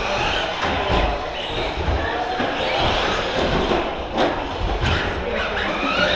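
Electric motors of 1/10-scale RC short-course trucks whining up in pitch as the trucks accelerate past, twice, over a low rumble of tyres on the track. A couple of sharp knocks, likely the trucks landing or hitting the track edges, come in the second half.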